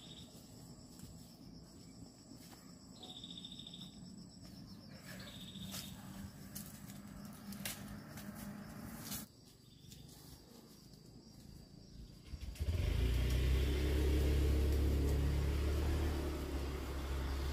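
Faint high insect-like chirring with a few clicks, then about two-thirds of the way through a motor engine starts up suddenly and runs steadily at a low pitch, much louder than the rest.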